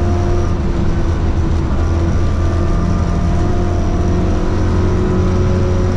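Ford Escort Mexico rally car heard from inside the cabin, its engine running hard at fairly steady revs. Steady road noise from the gravel track runs underneath.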